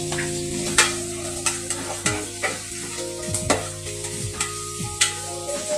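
Sliced onions sizzling in hot cooking oil in a rice cooker's aluminium inner pot, stirred with a utensil that clicks and scrapes against the pot at irregular intervals.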